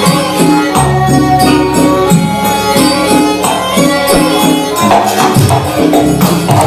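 Banyuwangi gandrung gamelan music: a fast, rhythmic run of pitched percussion notes over a low drum, with bright jingling percussion on top.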